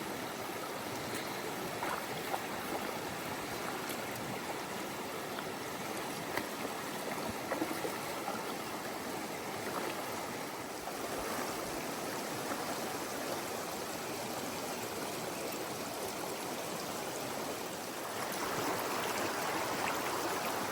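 A backcountry trout river running steadily, a constant rush of water that gets a little louder near the end.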